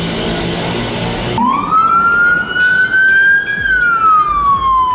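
Street traffic with a tractor-trailer's engine running, then cut off abruptly by an emergency-vehicle siren wailing loudly: one long rise in pitch, then a slow fall.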